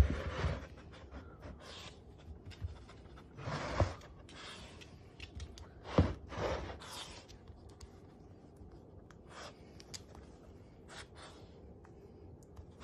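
Boston terrier sniffing and snuffling at a bowl of food, in short breathy puffs with scattered light clicks and rustles; a sharp click about six seconds in.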